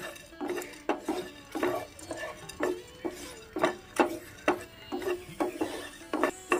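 Metal spatula stirring whole spices dry-roasting in a metal pan, clinking against the pan about two to three times a second, each knock ringing briefly.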